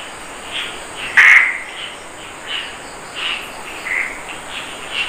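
Animal calls: short high chirps repeating roughly every three-quarters of a second over a steady high whine, with one louder, harsher call about a second in.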